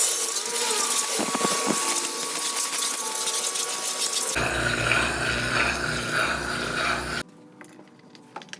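Water jet spraying onto a washing-machine drum as it is rinsed out. It is a loud, even hiss that takes on a deeper rumble about four seconds in and cuts off suddenly near the end.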